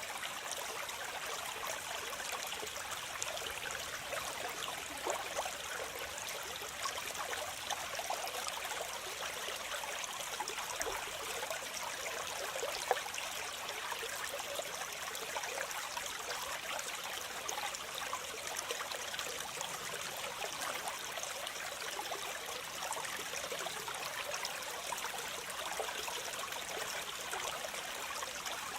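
Waterfall and stream water splashing and rushing steadily, a constant hiss-like wash of falling water with small splashes flickering through it.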